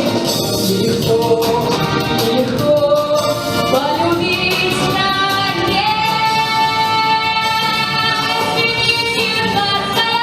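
A young girl singing solo over a backing track with a steady beat, holding a long note about six seconds in.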